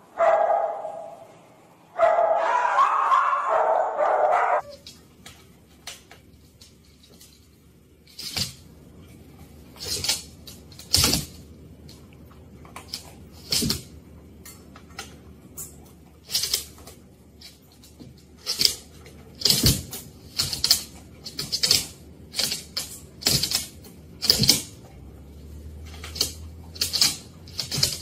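A dog barking for a couple of seconds, then dogs play-fighting: a long irregular run of short, sharp clicks and scuffles.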